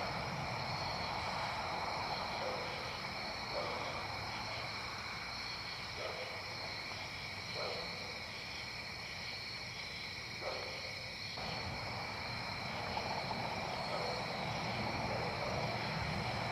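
Steady outdoor insect chorus, several high unbroken trills at once, over a low rumble, with a few faint knocks scattered through.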